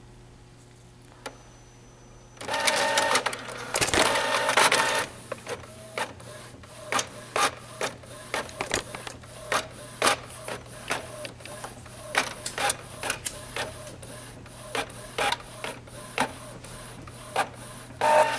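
Canon inkjet printer printing a sheet of labels. After a couple of seconds of quiet, the paper feed pulls the sheet in with a loud whir. Then the print head sweeps back and forth in a steady run of strokes about two a second as the sheet feeds out, with a louder burst near the end.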